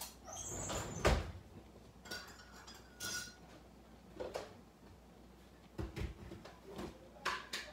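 Scattered clinks and knocks of cookware and utensils being handled, the loudest knock about a second in and a few lighter ones after the middle.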